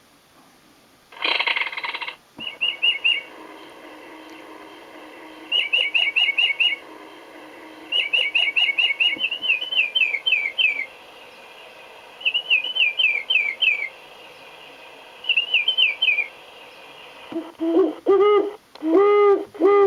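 National Audubon Society singing bird wall clock playing its recorded bird calls through a small speaker. A short harsh burst of sound about a second in, then a bird song of quick high chirps in five phrases with pauses between them, then a series of owl hoots starting near the end.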